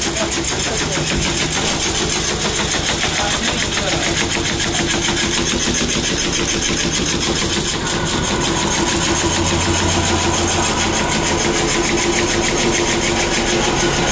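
Wooden ice cream stick making machinery running with a fast, even mechanical clatter over a steady hum.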